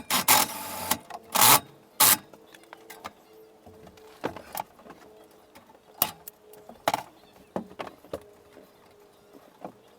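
Irregular knocks and clicks, loudest and closest together in the first two seconds, with a short hiss about half a second in, over a faint steady hum.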